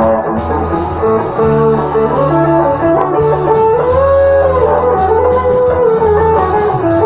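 Electric guitar playing a lead melody over a backing track with a steady bass line; about four seconds in, a held note is bent up and let back down.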